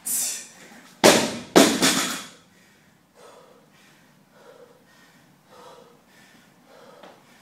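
An 80 kg barbell dropped from overhead onto the floor mat: two loud heavy impacts half a second apart, about a second in, as it lands and bounces. The lifter's heavy breathing follows faintly.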